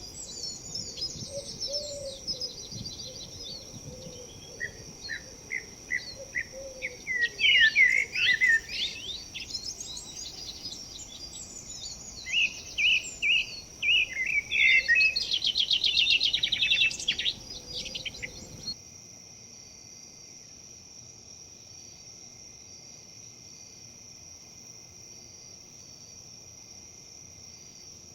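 Songbirds chirping and trilling over a steady high insect drone and a low background hiss. About two-thirds of the way through, the birdsong and hiss cut off abruptly, leaving only the steady insect drone.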